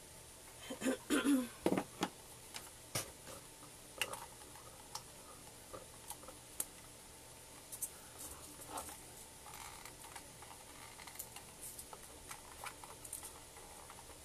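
Small clicks, taps and light scrapes of handling a hot glue gun and styrofoam pieces at a craft table, with a louder cluster of knocks about a second in.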